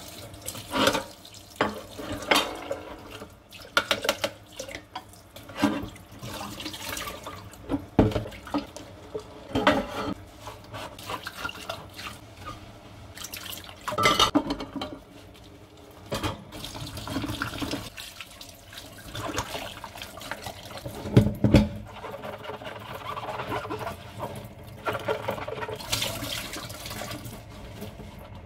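Kitchen tap running into a stainless steel sink while dishes are washed by hand: a steady splash of water with frequent knocks and clatters as dishes are handled.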